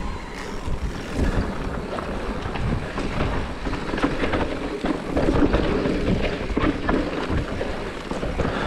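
Wind buffeting the action camera's microphone as a mountain bike rolls fast down a dirt singletrack, with tyre noise over dirt and leaves and irregular small rattles and knocks from the bike over bumps.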